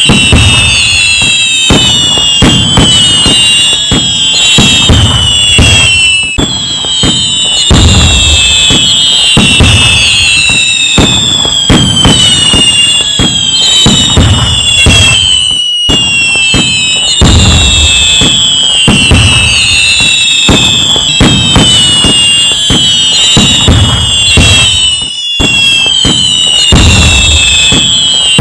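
A dense, loud fireworks barrage: constant booming bangs mixed with many whistling fireworks whose whistles fall in pitch. The same stretch repeats about every nine and a half seconds as a loop, with a short drop-out at each join.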